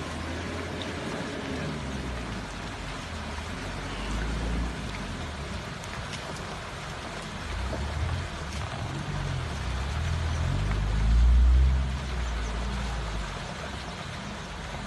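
Hooves of a stampeding wildebeest herd pounding down a dry, dusty bank: a dense, steady patter like rain over a low rumble. The rumble swells, loudest for a couple of seconds about eleven seconds in.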